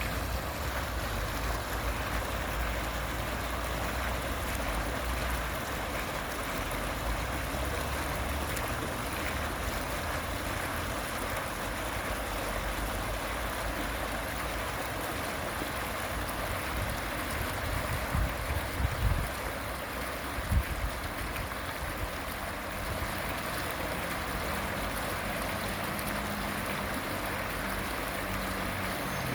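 Fountain water splashing in a steady, even rush. A few short, dull low thumps stand out about two-thirds of the way through.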